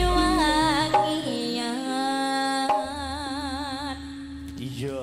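Javanese gamelan music (karawitan) with a singer holding long wavering notes over steady metallophone tones, punctuated by two sharp drum strokes. The music grows quieter toward the end.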